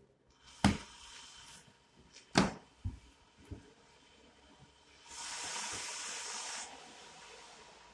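Unpacking a cardboard carton of brushcutter parts: two sharp knocks of cardboard and packed parts in the first few seconds and a few lighter taps, then a rustling hiss lasting under two seconds about five seconds in as a red wrapped item is lifted out.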